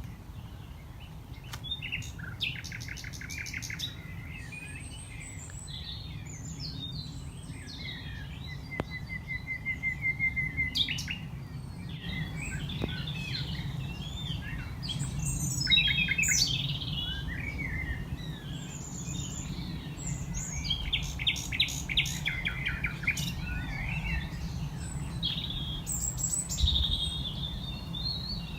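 Common nightingale singing, a varied run of phrases: fast trills of rapidly repeated notes, a series of evenly repeated notes, and whistled and chattering passages with short gaps between them. A steady low rumble lies underneath.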